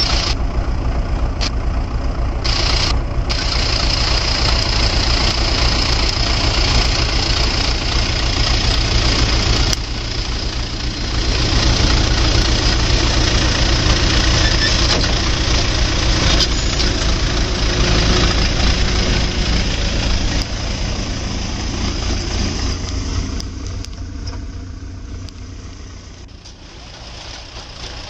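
Tractor engine running steadily while driving a post-hole auger through its PTO shaft as the auger bores into the soil. The sound grows quieter over the last few seconds.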